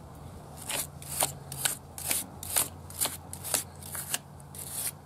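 Wire brush scrubbing a corroded car battery terminal: a rhythmic run of rough scratching strokes, about two a second, to scour off the corrosion.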